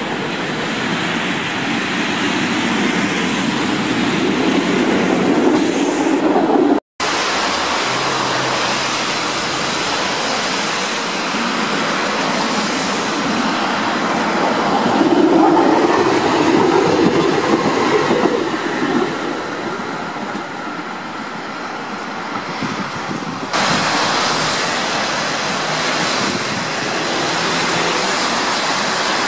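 Electric trams running along street rails, a steady rumble of wheels on track and traction motors, with light clatter over the rail joints. The sound cuts abruptly about seven seconds in and again near the end as one tram passing gives way to the next.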